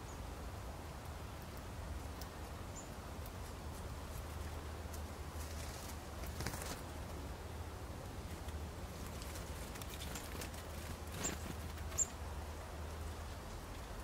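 Great tits coming and going at a shallow water dish: soft wing flutters and small taps and scratches, with a few short, high bird chirps. The sharpest chirps come about eleven and twelve seconds in, over a low steady hum.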